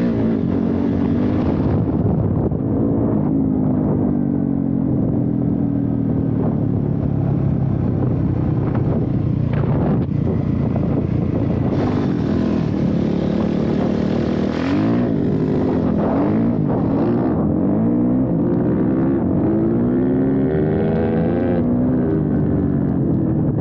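450 dirt bike engine running under way while being ridden. Its pitch rises and falls again and again as the throttle is worked, most often in the second half.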